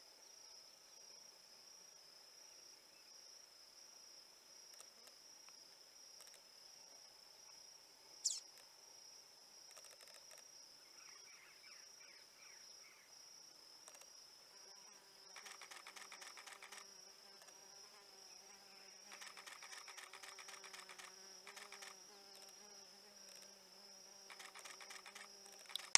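Faint insect sounds: a steady high-pitched insect drone, joined in the second half by a lower buzz and by bursts of rapid clicking trills, with one sharp click about eight seconds in.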